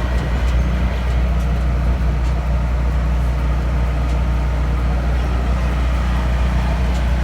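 Steady low mechanical rumble, like a vehicle running.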